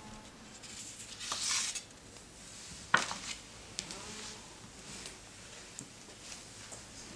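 A large sheet of paper handled on a tabletop: a swish as it is lifted or slid about a second and a half in, a sharp knock about three seconds in, then a few light clicks.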